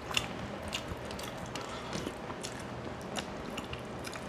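A man eating by hand, chewing and picking through a bony rohu fish tail on a steel plate: scattered small wet mouth clicks and smacks over a faint low hum.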